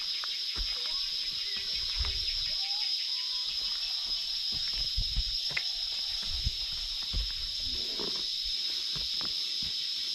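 Steady high-pitched drone of forest insects, with irregular thuds and scuffs of a runner's footsteps on a dirt trail.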